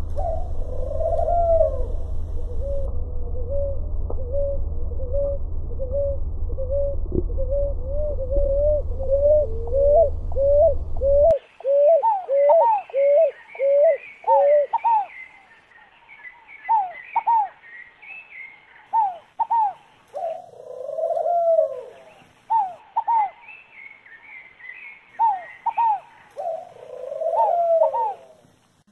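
A rolinha (ground dove) cooing: short low coos repeated steadily, about two a second, over a low rumble. About 11 seconds in the recording changes abruptly; the coos go on in looser runs with a few longer coos, while higher chirps from other small birds sound along with them.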